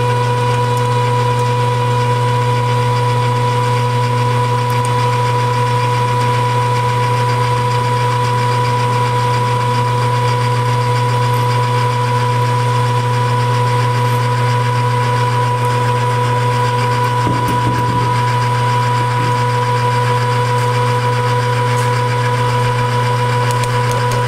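Jet metal lathe running with its chuck spinning: a loud, steady motor and gear hum with a constant whine above it.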